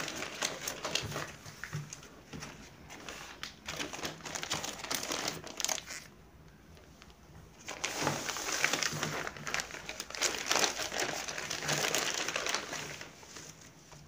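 Crinkling of a plastic packet of balloons and rustling of deflated latex balloons as they are handled, with a louder, denser stretch of crinkling in the second half as the packet is opened and emptied.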